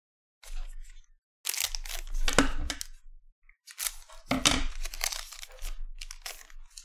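Foil trading-card pack wrapper crinkling and tearing as it is cut open with scissors and pulled apart, in several short rustling bursts with brief pauses between.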